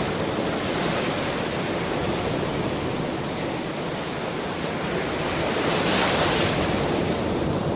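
Ocean surf: a steady rush of waves washing onto a shore, with one wave surging louder about six seconds in.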